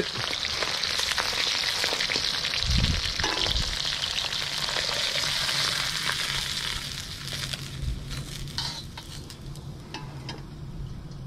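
Thinly sliced marinated beef deep-frying in hot oil in a carbon steel wok: a steady sizzle that fades over the last few seconds as the beef is lifted out with a wire spider strainer. A few light metal clicks near the end.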